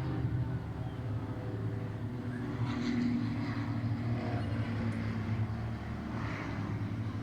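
A steady, low engine drone, with a louder, rougher swell about halfway through and again near the end.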